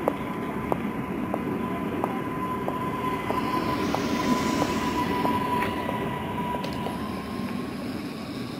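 Electric multiple-unit commuter train pulling out and running away along the platform: a steady electric motor whine over rail and wheel rumble that swells around the middle and fades toward the end. Regular light steps sound about every two-thirds of a second.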